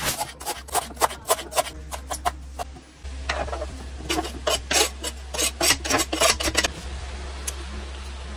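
Kitchen knife chopping fresh herbs on a plastic cutting board: quick, regular tapping strokes, a short break about three seconds in, then a second run of strokes that stops near the end.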